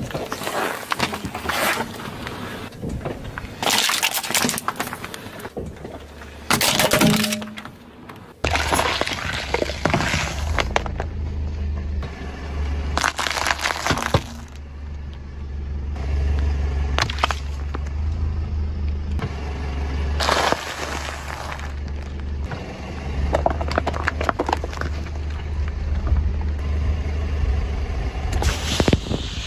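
A car's tyre rolling slowly over one object after another on asphalt, with repeated sharp cracks and crunches as the items break and burst under its weight. A low engine hum runs underneath from about a third of the way in.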